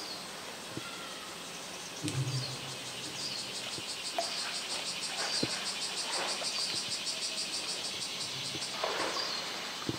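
Cicadas buzzing in a fast pulsing drone that swells in the middle, with water splashing as a polar bear swims through its pool, the biggest splash near the end.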